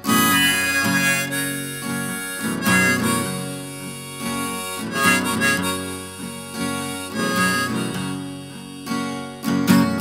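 Harmonica, played from a neck rack, carrying the melody over an acoustic guitar: an instrumental harmonica break with no singing.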